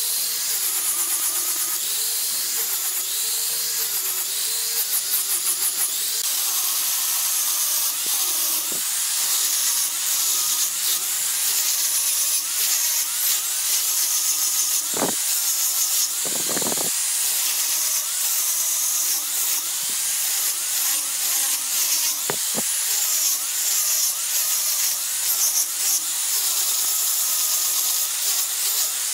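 Electric angle grinder with a sanding disc, abrading a carved wooden handrail section: a steady high motor whine over the rasp of abrasive on wood, swelling and dipping as the disc is pressed on and worked along the curve. A few sharp knocks come about halfway through.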